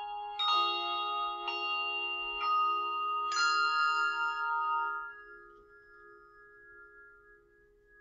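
A handbell choir ringing chords, with several bells struck together about once a second. The last chord, about three and a half seconds in, rings on until most of it stops at about five seconds, leaving a few bells sounding softly and fading.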